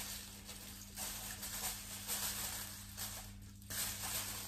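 Aluminium foil crinkling and rustling as it is wrapped and pressed around a child's body, with a brief lull about three seconds in.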